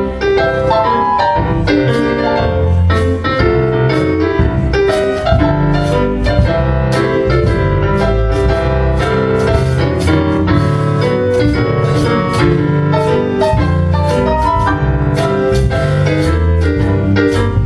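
Piano or keyboard playing a tune with a strong bass line and a steady beat.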